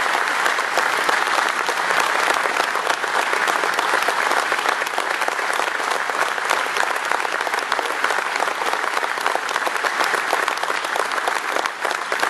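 Large audience applauding: dense, steady hand clapping that carries on without a break.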